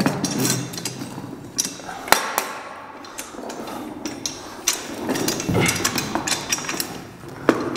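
Red steel drywall lift base being unfolded: metal legs clanking and knocking as they swing out and set, with caster wheels rolling and bumping on a tile floor. Sharp knocks about two seconds in and near the end.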